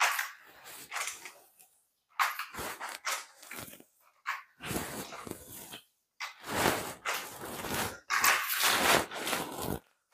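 A sponge mop swishing across a wet tiled floor in repeated strokes, about six of them, each a second or two long with short pauses between.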